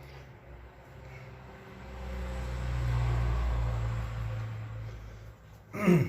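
A low, engine-like rumble with a deep hum swells over about two seconds, holds, then fades away. A short, loud sound with a falling pitch comes near the end.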